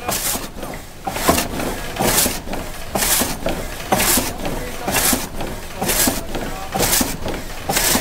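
Water-powered vertical frame saw (oppgangssag) running, its blade giving a rasping cut through the log on each stroke, a little under once a second, over the steady rush of the water driving the wheel.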